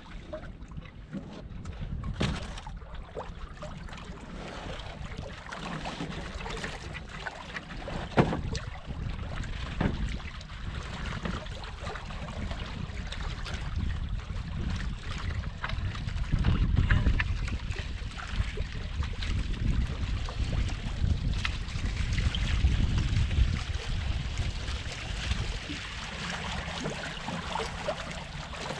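Wind buffeting the microphone and water rushing and slapping along a small sailboat's hull while under sail, with a few sharp knocks or splashes. The wind gusts louder past the middle.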